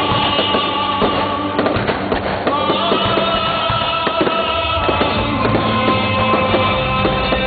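Loud music with long held notes, while fireworks bang and crackle through it.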